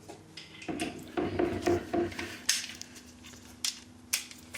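Metal hand tools clinking and clattering as sockets and a socket adapter are handled, with a few sharp metal clicks over a faint steady hum.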